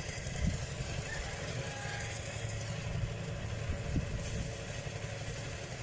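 Rice thresher's engine running steadily with a low rumble.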